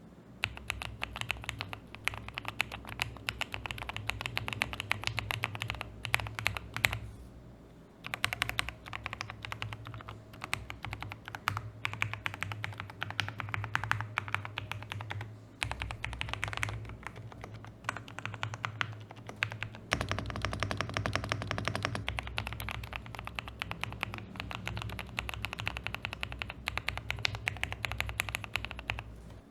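Typing on a Zuoya GMK87 mechanical keyboard fitted with factory-lubed Gateron Milky Yellow Pro switches and gradient PBT doubleshot keycaps: a fast, continuous run of key clicks, with a brief pause about seven seconds in.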